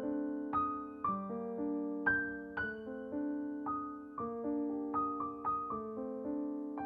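Background music: a slow, gentle keyboard melody on a piano-like sound, about two notes a second, each note starting crisply and fading away.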